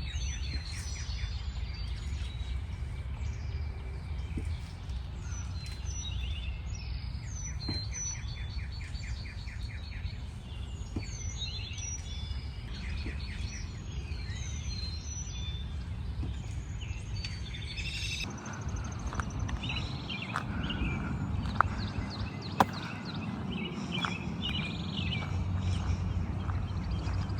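Small birds chirping and trilling in many short calls over a steady low background rumble. About two-thirds of the way through, two sharp clicks about a second apart stand out.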